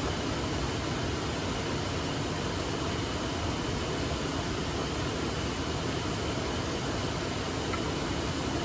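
Steady rushing of a nearby waterfall, an even noise that does not change.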